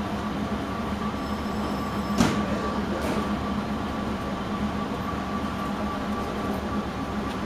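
KiHa 58 diesel railcar's DMH17H diesel engine idling with a steady drone, with a single sharp clank about two seconds in.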